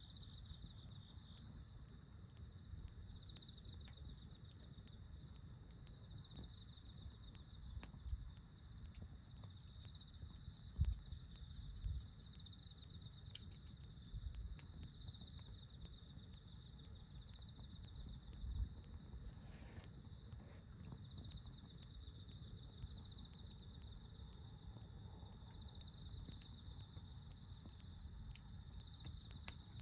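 Insects chirring in a steady high-pitched drone, with a wood campfire crackling underneath in scattered small pops and one louder pop about eleven seconds in.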